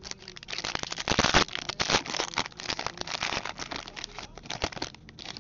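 Foil wrapper of a 2011-12 Upper Deck SP Authentic hockey card pack crinkling and crackling as hands handle it and tear it open. It is loudest about a second in.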